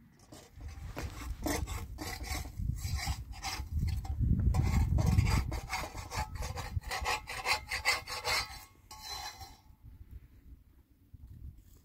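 A thin metal spatula scraping over a hot iron flatbread griddle in a run of quick, irregular strokes that stop about nine and a half seconds in. Under it is a low rumble that swells to its loudest around the middle.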